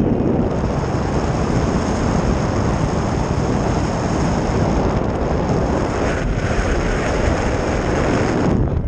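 Strong wind rushing over the camera's microphone as the paraglider flies in high wind. It is a loud, steady rush that drops off suddenly near the end.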